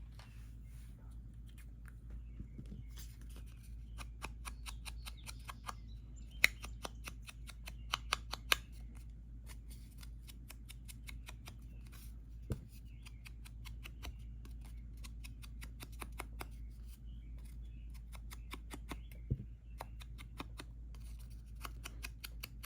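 Foam ink dauber tapping and dabbing on an ink pad and along the edges of a paper card panel: runs of quick light clicks and taps, with a few sharper taps in between.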